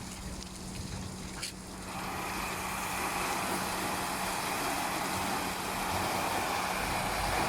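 CB-730 rollover bus-and-truck wash machine running: a steady motor hum, with a rush of spraying water that comes in about two seconds in and grows louder.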